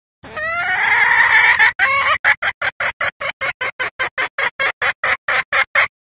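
Female red junglefowl calling: a drawn-out call rising in pitch for about a second and a half, then a fast run of short clucks, about five a second. It is a hen call of the kind used to lure cock junglefowl and set them crowing.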